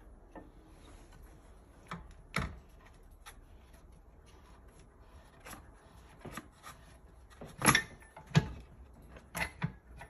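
Scattered knocks and clicks from handling a manual hot-foil stamping press, as its work table is cranked up under a polypropylene sheet. The loudest knocks come about two and a half seconds in and again near the eight-second mark, with a quick pair shortly after.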